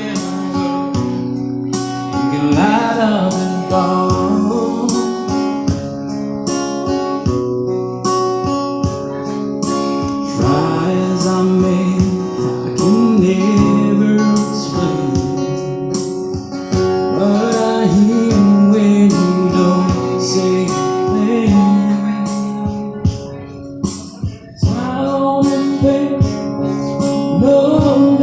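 Live song with guitar accompaniment and a singer, played loud, with a brief dip in level about three-quarters of the way through.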